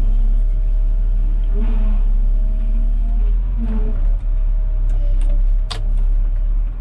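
Volvo wheel loader's diesel engine working hard, heard from inside the cab, with a steady whine from the hydraulics as the raised bucket tips gravel into a dump truck. A sharp click about five and a half seconds in.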